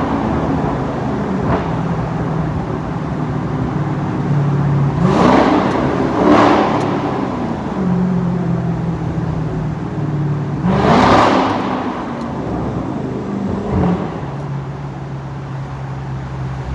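Car engine and road noise heard from inside the moving car, a steady drone. The engine revs up in two louder swells, about five seconds in and again about eleven seconds in.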